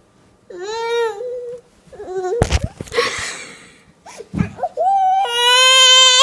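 Toddler crying and wailing in a tantrum. There is a wail about half a second in and short cries around two seconds, then a thump with a noisy outburst. A long, loud held cry comes near the end.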